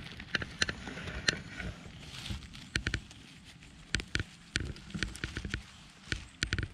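Dry pine needles and twigs crackling and rustling as a gloved hand digs through the forest-floor litter to pull up a mushroom, with irregular sharp snaps throughout.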